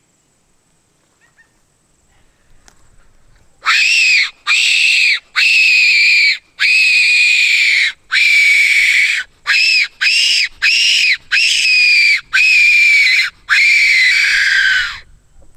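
Fox whistle blown in a run of eleven loud, high squeals, starting about four seconds in, the last one falling away in pitch, imitating a distressed rabbit to call in foxes.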